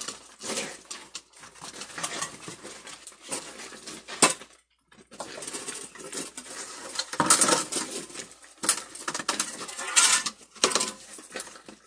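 Irregular clattering, clicking and scraping as objects are handled and moved about, with a sharp knock about four seconds in and denser bursts of clatter later on.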